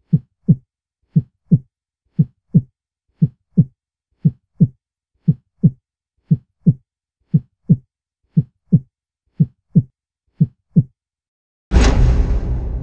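Heartbeat sound effect: a slow, low double thump, lub-dub, about once a second, eleven times over. Near the end a loud, deep impact hits and rings out slowly.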